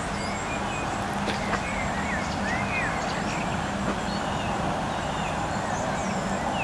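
Small birds chirping and singing repeatedly over a steady background rumble with a faint low hum.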